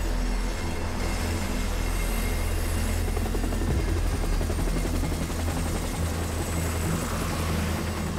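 Light helicopter landing, its rotor and engine running loudly and steadily with a low, even beat of the blades.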